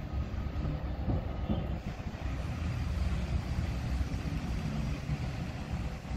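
Gusty wind buffeting the microphone: an uneven low rumble with a rushing hiss over it.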